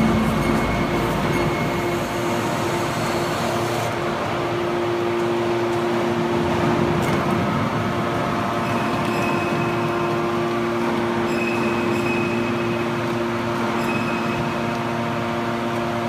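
Hydraulic power unit of an automatic horizontal scrap-metal baler running steadily under load, a constant mechanical hum with a held low tone, as the bale door lifts and the ram pushes out a compressed bale of aluminium cans.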